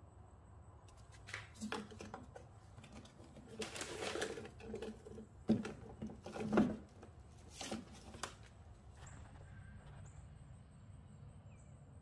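Faint, irregular knocks, taps and rustles of things being handled, a handful spread over several seconds with the loudest near the middle, over a low steady background.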